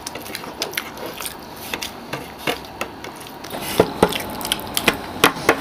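Close-up eating sounds of fuchka being chewed: crisp puri shells crunching, with many short clicks and a few sharper snaps about four and five seconds in.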